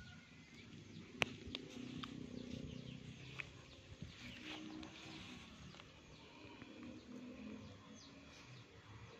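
Faint outdoor background with birds chirping in short falling calls and a low rumble, broken by a few sharp clicks, the loudest about a second in.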